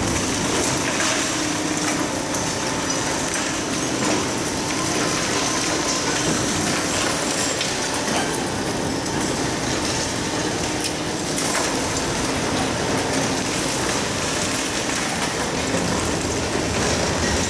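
Kobelco demolition excavators running with their hydraulic crushers biting into reinforced concrete. A steady engine hum sits under a continuous crackle and clatter of breaking concrete and falling rubble, with a steady hiss over it.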